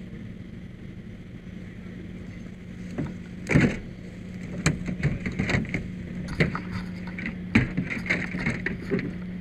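Knocks and rattling clatter from hands and gear working inside a wrecked car, one loud knock about three and a half seconds in, then a busy run of sharper knocks, over a steady low hum.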